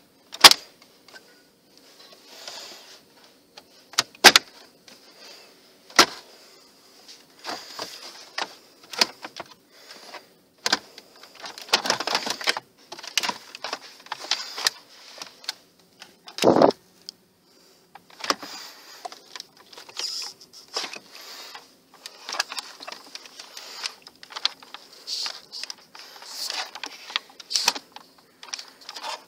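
A plastic car trim panel being handled and worked loose, likely the Nissan Leaf's upper centre console panel with its clips: a series of sharp clicks and knocks with rustling between them, and a heavier thump about 16 seconds in.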